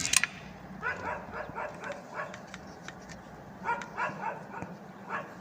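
A sharp crack at the very start, followed by a dog barking in short runs of quick barks, with pauses between the runs.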